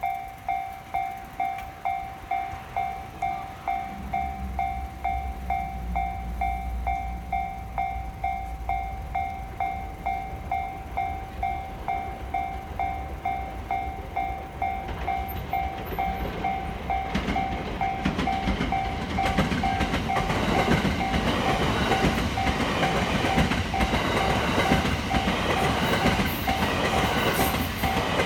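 Japanese railway level-crossing warning bell dinging in a steady, quick repeating pattern. A low train rumble sets in a few seconds in, and from about the middle a train passes with swelling wheel noise and a clatter of wheels over rail joints, loudest near the end.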